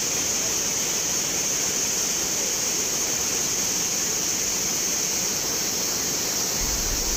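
Surplus water rushing through a dam's opened spillway gates, a steady, unbroken roar of churning water.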